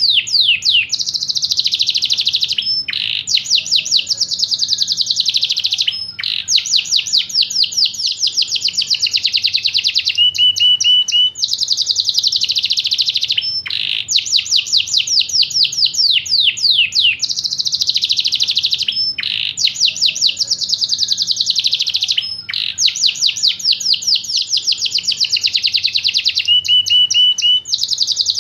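Yorkshire canary singing a continuous song of fast, high trills and rolls, phrase after phrase, each a few seconds long with only brief breaks between them.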